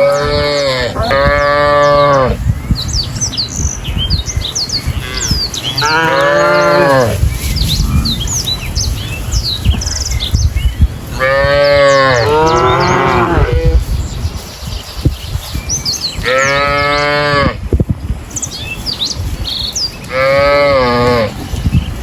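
Cows mooing: six drawn-out moos of about a second each, the pitch of each rising and then falling, two of them back to back near the middle. Small birds chirp in the background.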